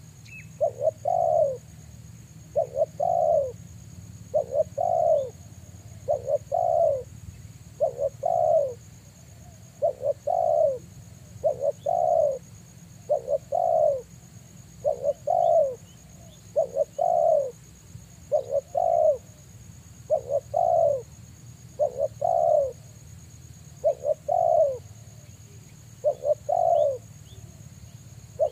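Spotted dove cooing over and over, a falling two-part coo about every two seconds, with a faint steady high tone behind it.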